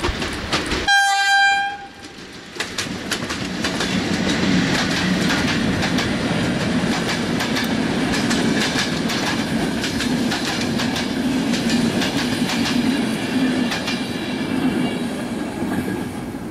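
PKP EP09 electric locomotive gives one short horn blast about a second in. Then it and its passenger coaches pass close by, with steady rolling noise and wheels clicking over the rail joints.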